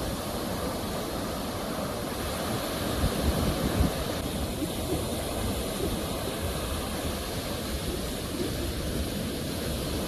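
Sea waves: a steady rush of surf, swelling louder for a moment about three seconds in.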